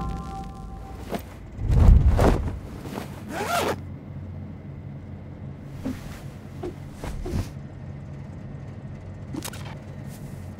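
Intro sound design: a deep low boom about two seconds in, then a series of short swishes and zip-like sweeps over a steady low hum.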